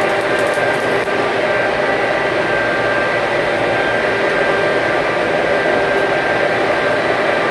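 Stick (shielded metal arc) welding arc burning steadily: a continuous loud hiss with a few faint steady tones underneath.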